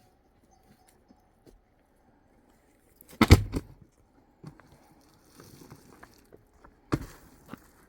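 A few sudden knocks and clatters: a short burst of several knocks about three seconds in, the loudest, and one sharp knock near the end, with faint ticks in between.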